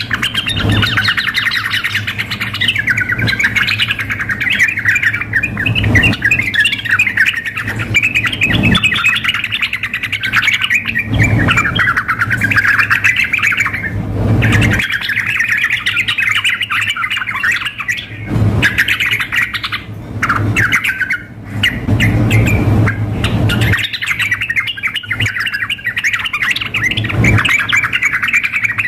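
Yellow-vented bulbuls singing and chattering hard, in fast, nearly unbroken bursts, with calls mixed in. A low hum and dull thumps every few seconds sit underneath.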